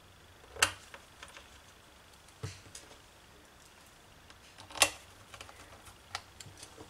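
A small screwdriver and screws clicking and tapping against a laptop's bottom cover as the case is screwed shut: two sharp clicks, about half a second in and just before five seconds, with lighter ticks between and after.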